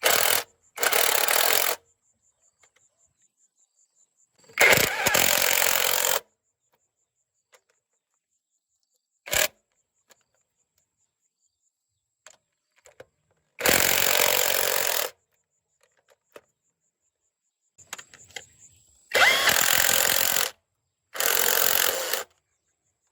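A power tool running in short bursts of about one to one and a half seconds, five times, each starting and stopping abruptly, with near silence between.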